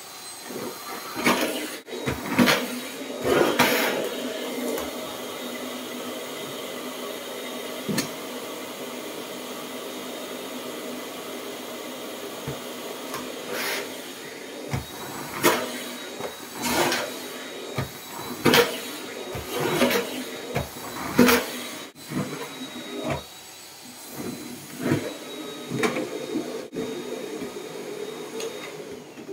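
Canister vacuum cleaner running with a steady hum and a thin high whine. Its floor nozzle and wand clack and knock sharply again and again as they are pushed over a rug and tiled floor. The motor is switched off right at the end.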